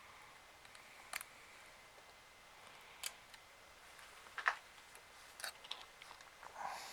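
Scattered light clicks and taps, about five over several seconds, the loudest a little past the middle: small tools and plastic parts of a Nintendo 3DS XL being handled during disassembly.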